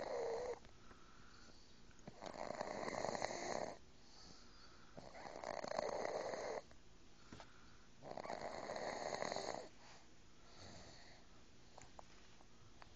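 A three-month-old baby snoring: a noisy breath of about a second and a half, roughly every three seconds, four times, then a much fainter one.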